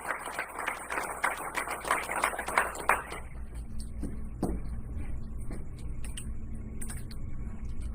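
Audience clapping after a name is called, a dense patter of hand claps that dies away about three seconds in, leaving the low hum of the hall with a few scattered knocks.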